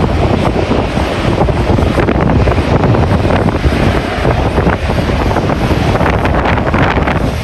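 Strong wind buffeting the microphone: a loud, continuous rumble that surges and dips irregularly.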